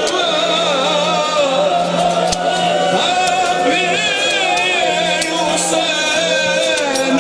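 A male voice singing a wavering, drawn-out lament, a Muharram noha, over a steady low hum, with a few sharp clicks.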